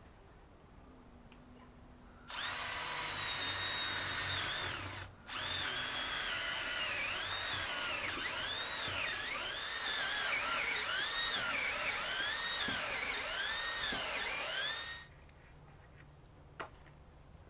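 Power drill running in two bursts, a short one and then a long one after a brief pause. Its whine dips in pitch and recovers again and again as the motor slows under load and speeds back up.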